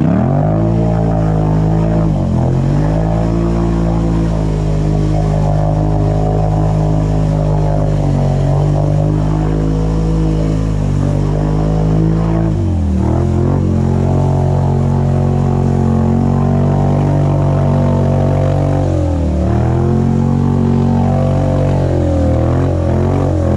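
ATV engine running at steady high revs while wading through deep water, the revs dipping and recovering three times, with water splashing and churning around the machine.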